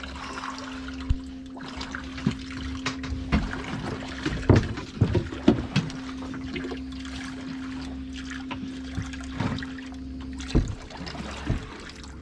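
Small fishing boat at sea: water sloshing against the hull over a steady hum, with a cluster of sharp knocks a little past the middle and another knock near the end.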